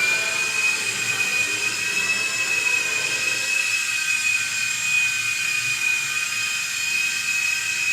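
Tiny electric motors of a mini remote-control toy helicopter spinning its rotors: a steady high-pitched whine.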